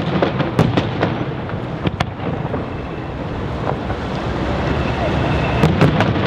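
Aerial firework shells bursting in sharp bangs, several in the first two seconds and three in quick succession near the end.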